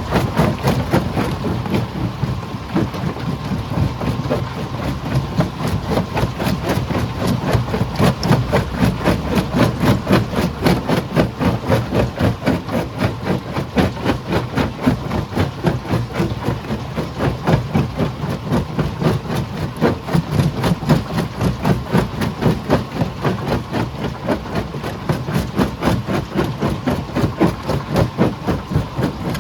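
Heavy stone-crushing machinery working with a fast, even pounding several times a second over a low engine rumble.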